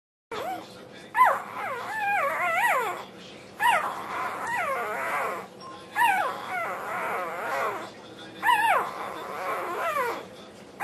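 Australian Shepherd puppy 'singing' while eating: a string of whiny, howling calls whose pitch wavers up and down. Several calls start with a sharp high note that slides down.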